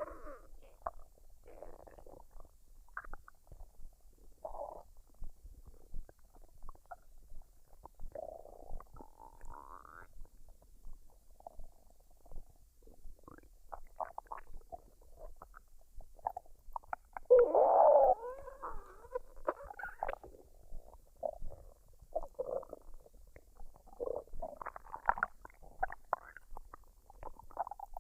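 A woman's stomach gurgling as it digests a meal, in scattered short gurgles and pops. A little past halfway comes one longer, louder gurgle that slides up and down in pitch.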